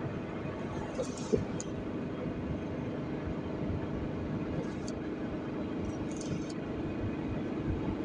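Steady road and engine noise heard from inside the cabin of a moving car.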